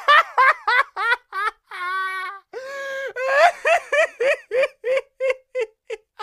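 A high-pitched cackling laugh: a fast run of short "ha" syllables, two drawn-out held notes near the middle, then more syllables that fade away toward the end.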